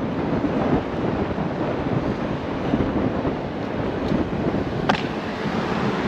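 Wind buffeting the microphone of a rider moving along on an electric unicycle, over the rumble of its tyre on rough asphalt. A single sharp click sounds about five seconds in.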